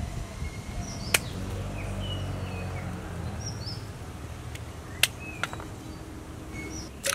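A knife cutting into a peeled cassava root held in the hand: a few sharp chopping clicks, about 1 s and 5 s in and again near the end. Birds chirp in the background.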